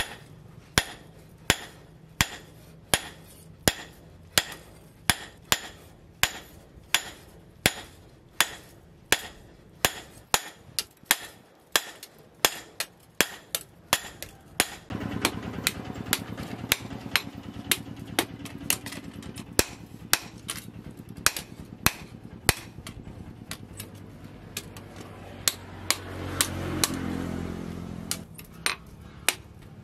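Hand hammer striking a red-hot steel knife blade on a steel post anvil, in sharp, evenly paced blows at about two a second. A steady low hum comes in about halfway and swells briefly near the end.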